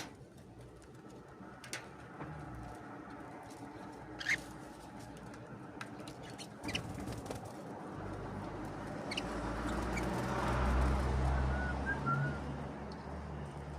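Canaries feeding, with scattered small sharp clicks and taps and a few faint short chirps. A low rumble swells from about the middle of the clip and fades near the end.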